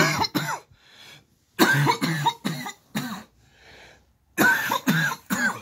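A man coughing in three bouts of several hard coughs each, with breaths drawn in between: the lingering cough of COVID-19, still going after his course of medication has ended.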